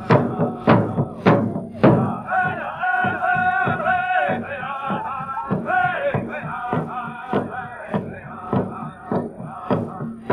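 Large powwow-style hand drum struck in unison by a seated drum group, a steady beat a little under two strokes a second. About two seconds in, high-pitched singing comes in over the drum as an accompaniment for the dancing.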